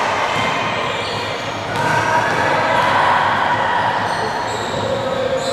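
Basketball game noise: a ball bouncing on the court amid a steady din of players and spectators.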